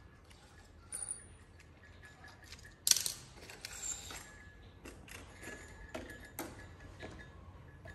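Stainless-steel wire bird trap being handled: its wire door and flap click and rattle, with one sharp metallic snap about three seconds in.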